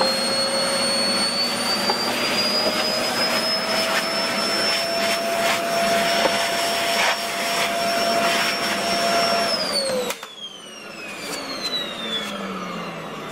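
Vacuum cleaner running with a steady high whine, with scattered ticks and scrapes as its nozzle sucks dust off a fiberglass motorcycle fender. About nine and a half seconds in it is switched off, and the whine falls in pitch as the motor runs down.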